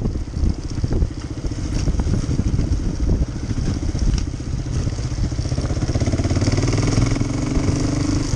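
Motorcycle engine running while riding, with rattling and knocks in the first few seconds; about five seconds in the engine note smooths out into a steadier, slightly louder hum.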